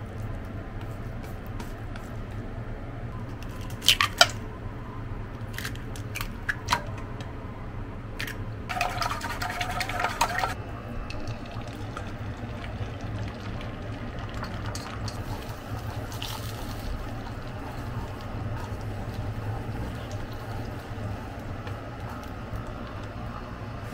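Eggs beaten with chopsticks in a stainless steel bowl: a few sharp clicks, then a fast rattling clatter against the ringing metal bowl for about two seconds near 9 seconds in. After that, beaten egg is poured into a nonstick frying pan and stirred with chopsticks, a soft steady liquid sound.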